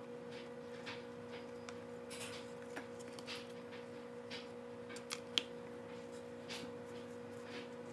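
Faint clicks and light rustles of food and utensils being handled on a kitchen counter, with one sharper click a little past halfway, over a steady low hum.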